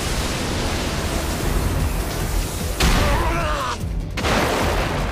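Anime battle sound effects: a dense rushing rumble of crumbling rock and flying debris over background music, with a heavy impact about three seconds in and another loud burst just after four seconds.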